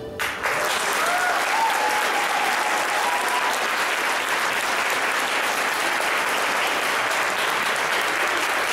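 Audience applauding, breaking out just as the dance music stops and carrying on steadily.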